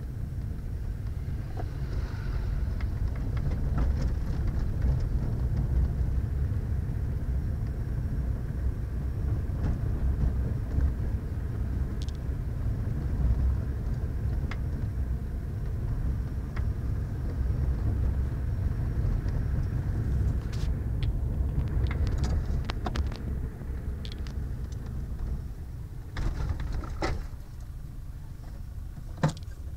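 Car being driven, heard from inside the cabin: a steady low rumble of engine and road noise, with scattered small clicks and knocks. The rumble drops somewhat near the end.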